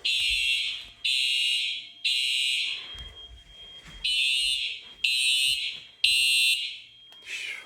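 Simplex electronic fire alarm horns sounding loudly in the temporal-three evacuation pattern: three short high-pitched blasts about a second apart, a pause of about a second and a half, then three more. The system is in alarm from a smoke detector tripped with test smoke.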